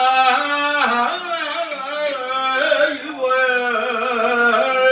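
A man singing a slow, ornamented chant solo into a microphone, his voice gliding between long held notes, with a short breath about three seconds in.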